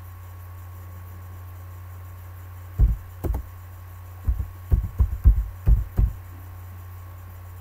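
Keystrokes on a computer keyboard: about nine dull thumps, starting near three seconds in and coming quicker in a short run, over a steady low hum.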